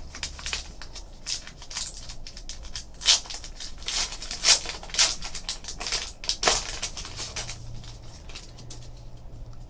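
Trading card pack wrapper crinkling and tearing as it is peeled open by hand, a run of short irregular crackles.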